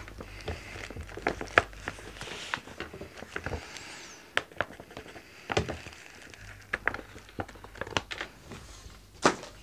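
Thick plastic ration pouch crinkling and rustling as it is handled and cut open, with many short sharp clicks and crackles.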